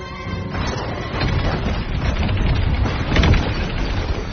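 Dense crashing and rumbling of breaking, falling concrete debris, with a heavier impact about three seconds in.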